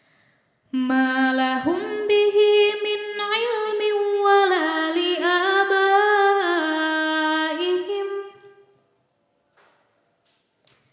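Unaccompanied melodic Quran recitation (tajwid chanting) by a single voice. One long drawn-out phrase with ornamented rises and falls in pitch starts about a second in and fades out about two seconds before the end.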